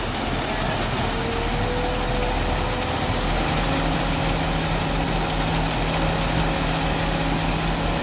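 Engine of construction-site machinery running steadily, with a lower steady tone joining about three seconds in.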